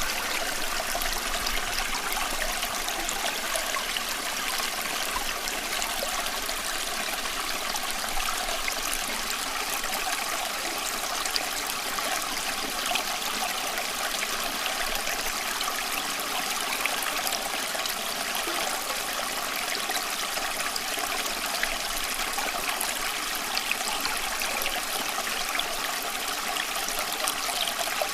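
Water running steadily: an even, unbroken flow with little deep rumble.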